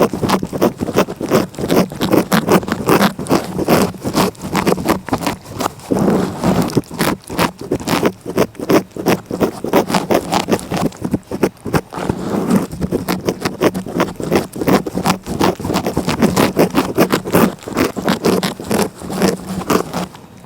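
A cat licking close against the microphone: quick, rasping strokes of its rough tongue, several a second, going on and on.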